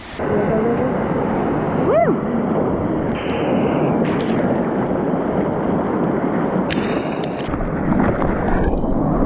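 Sea surf rushing with wind buffeting the microphone in a steady roar of noise, and a brief rising-and-falling cry about two seconds in.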